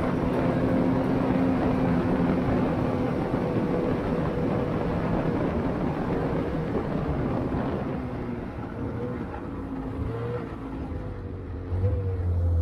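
Ski-Doo Expedition Xtreme snowmobile's two-stroke engine running steadily along the trail, then easing off about two-thirds of the way through as the sled slows, its pitch wavering.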